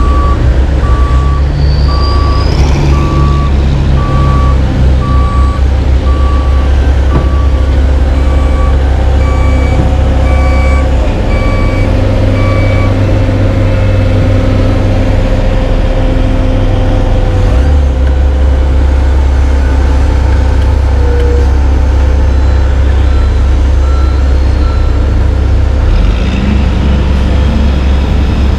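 Heavy diesel paving machinery running: an asphalt paver, dump truck and roller, with a deep engine drone that shifts in level a couple of times. A backup alarm beeps about once a second through the first half, then stops.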